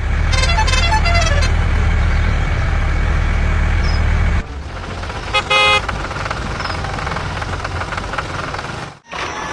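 A loud low vehicle rumble that cuts off abruptly after about four seconds, then a short horn toot a little past halfway over steady engine noise.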